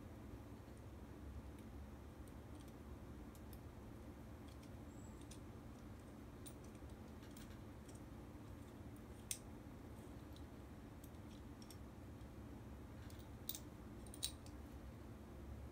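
Faint clicks and small taps of a motorcycle dash cam's mount and bracket parts being handled and turned, scattered throughout, with one sharper click about nine seconds in and two more near the end, over a low steady hum.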